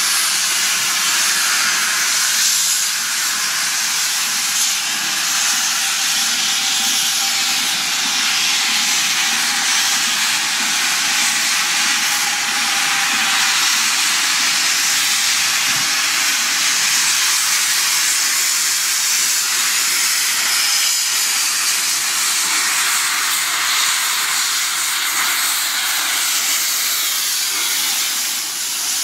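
Steam locomotive Royal Scot venting steam in a loud, steady hiss that holds unbroken for the whole time and eases slightly near the end.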